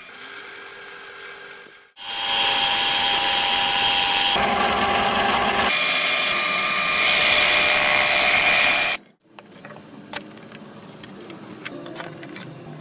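Drill press spinning a homemade sanding drum, with wood being sanded against it: a faint hum at first, then a loud, steady whir for about seven seconds whose tone shifts a few times, cutting off suddenly. After that come quiet scattered clicks and knocks of hand work.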